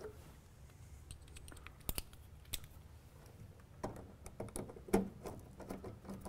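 Small irregular clicks and ticks of a precision screwdriver and insulated fork connectors being worked into an electric meter's screw terminal strip. The clicks are faint and scattered, bunching up in the second half, with the sharpest click about five seconds in.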